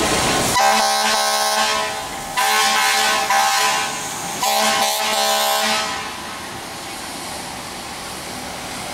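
Fire truck air horn sounding three blasts, the middle one the longest, to warn traffic as the apparatus leaves the firehouse. After the horn, steady engine and street noise.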